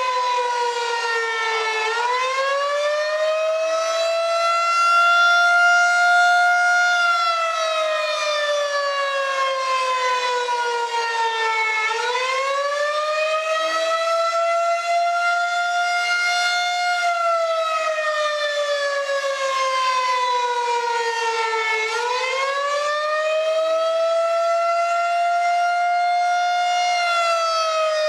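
Outdoor tornado warning siren with a rotating single horn, sounding one tone that climbs quickly, holds, then slides down slowly, about every ten seconds.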